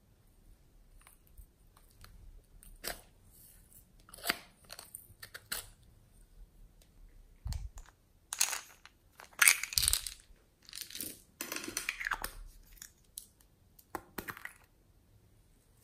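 Hard plastic toy containers handled and opened: scattered clicks, taps and short scraping rustles, busiest about halfway through as the tomato-shaped pots are worked open.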